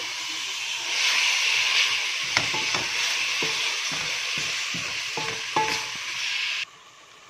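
Chicken pieces sizzling in hot oil in a metal pot while a spatula stirs them, scraping and knocking against the pot. The sizzle grows louder about a second in and cuts off suddenly near the end.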